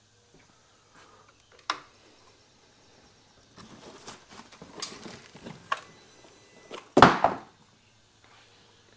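Handling noises: a few scattered clicks, rustling with sharp ticks in the middle, and one heavy thump about seven seconds in.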